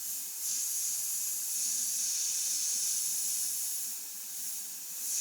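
Airbrush spraying paint at about 35–40 psi: a steady, high air hiss that swells slightly about half a second in.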